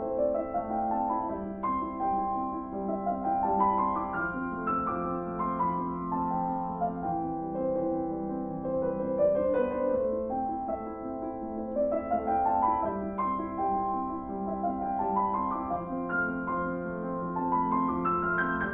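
Background piano music: runs of notes climbing upward in repeated phrases over held lower notes.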